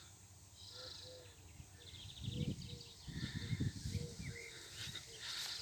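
Birds calling in woodland: a low two-note call repeating about every second and a half, with higher chirps and trills. Footsteps on a path from about two seconds in.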